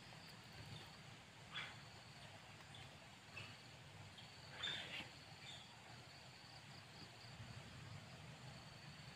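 Faint forest ambience: a steady high-pitched insect drone, with a few short, faint sounds over it, the loudest about four and a half seconds in.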